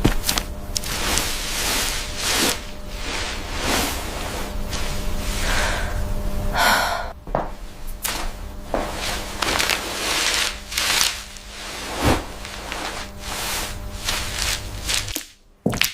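AI-generated ASMR eating sounds: close-up crunching and chewing of food, with irregular crisp crackles over a steady low hum that cuts off shortly before the end.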